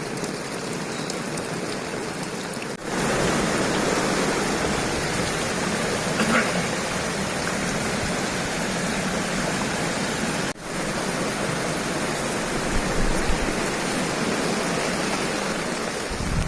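Heavy rain with rainwater running and pouring, a steady rushing hiss, broken twice by sudden brief gaps.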